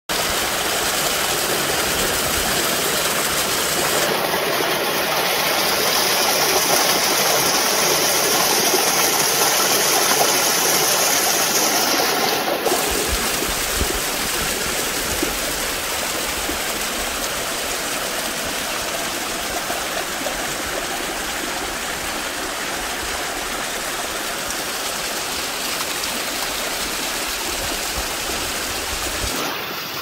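Steady rush of water from a stream and waterfall, an even hiss that changes tone abruptly about 4 and 12 seconds in.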